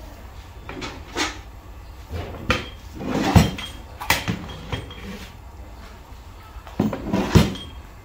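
Long metal stirring paddle scraping and knocking against a large metal cooking pot of thick grain mash, in irregular strokes; the loudest knock comes about three and a half seconds in.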